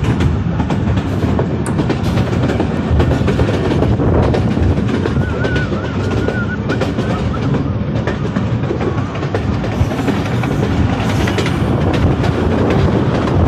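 Passenger train running at speed, heard from the open doorway of a coach: a steady, loud rumble of wheels on rails with frequent small clicks.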